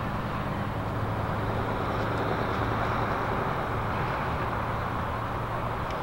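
Steady road traffic noise: a continuous hiss of tyres and engines from passing vehicles, swelling slightly in the middle, with a low steady hum underneath.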